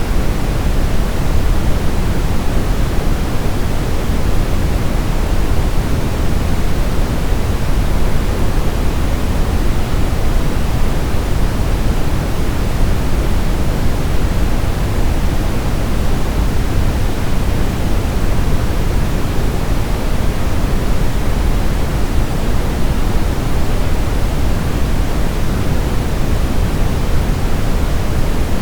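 Brown noise: a steady, deep rushing hiss, strongest in the low end and fading toward the top, with no changes.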